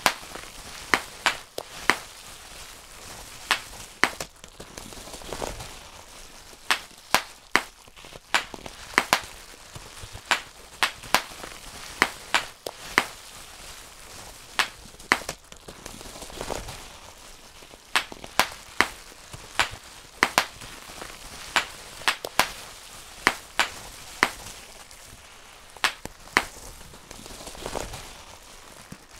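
Bubble wrap being popped by hand: sharp, irregular pops, a few a second in quick clusters with short pauses, over the crinkle and rustle of the plastic sheet.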